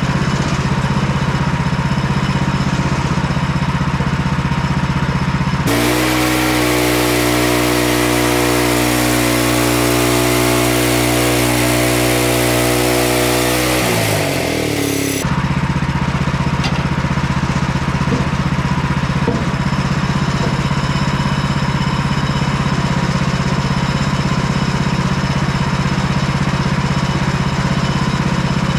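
Portable bandsaw sawmill's gasoline engine running at a steady idle, then throttled up from about six seconds in for roughly eight seconds with a loud hiss from the running band blade, before its pitch falls back to idle.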